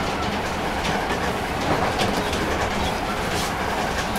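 Commuter train running along the track, heard from inside the driver's cab: a steady rumble of wheels on rail, with a few clicks as the wheels pass over rail joints.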